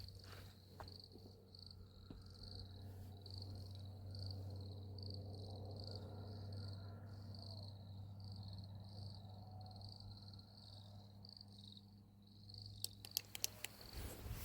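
Insect chirping faintly in short high pulses, about two a second, over a steady low hum. A few sharp clicks sound near the end.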